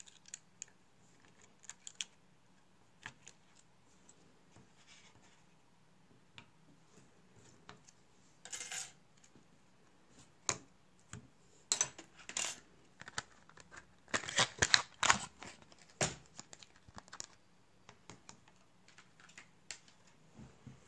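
Small clicks, taps and scrapes of phone parts being handled: a plastic pry tool working at the display's cable connectors on an opened iPhone 6s, then the detached screen assembly being lifted and laid on the table. A short rasp comes about eight seconds in, and the loudest flurry of clicking and scraping about two-thirds through.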